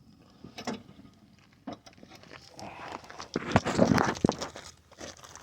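A few scattered clicks, then about two seconds of clattering with several sharp knocks around the middle.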